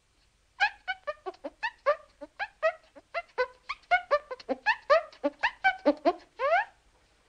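A fast run of short, squeaky chirps, about five a second, each sliding up or down in pitch, ending in one longer rising squeak near the end.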